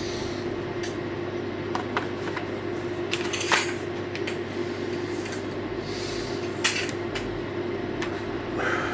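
Scattered clicks and light clatter of hard objects being handled, over a steady low hum.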